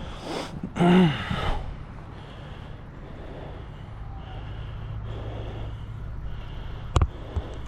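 A person's heavy breath: a breathy exhale followed about a second in by a short voiced sigh or grunt, over a faint steady outdoor background with a low hum. A single sharp click comes near the end.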